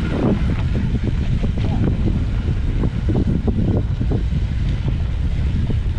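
Mountain bike descending a rough, rocky dirt trail at speed: constant wind noise on the action camera's microphone over the rumble of the tyres, with irregular knocks and rattles as the bike hits bumps.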